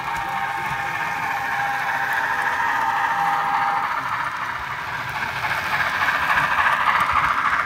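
HO scale model steam locomotive and passenger cars running past on the layout track: a steady whirring rattle of wheels and mechanism, with a thin steady whine that stops about four seconds in. It grows louder near the end as a second engine passes close by.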